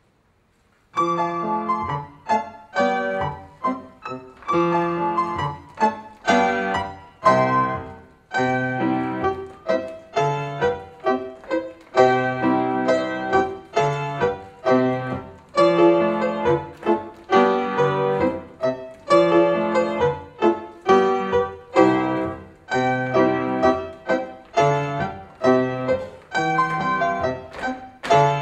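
Solo piano playing ballet barre accompaniment, a steady beat of struck chords that starts about a second in.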